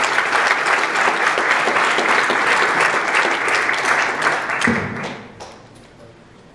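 Audience applauding: dense, steady clapping that fades out about five seconds in.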